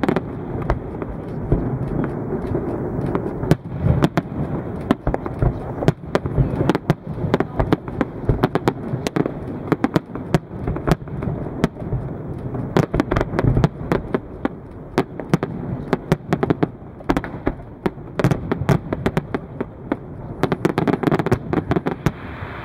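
Fireworks display: a dense, unbroken barrage of aerial shell bursts and crackle, several sharp bangs a second over a steady low rumble.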